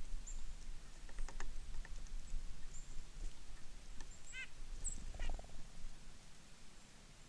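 Small songbirds at a winter feeder giving short, high chip calls, with a quick run of chirps about four seconds in and another a second later. A low rumble underneath fades away near the end.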